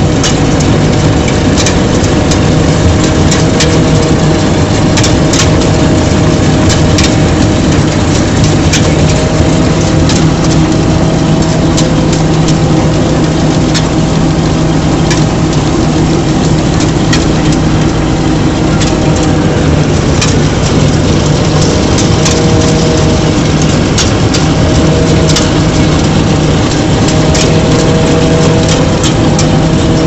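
Kartar combine harvester at work in rice: a steady, loud diesel running note with the header's reel and cutter bar clattering, and many sharp clicks and crackles as the stalks are cut and fed in.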